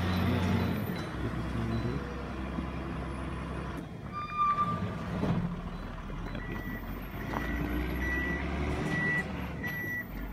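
Wheel loader's diesel engine running as it works loose rock off the road. From about six seconds in, its reversing alarm sounds a steady series of short beeps on one pitch.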